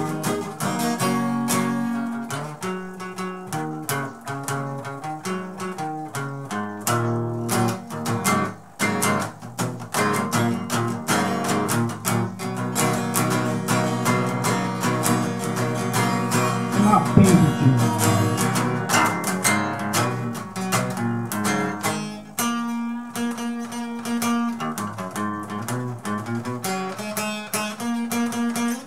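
Acoustic guitar strumming a run of chords.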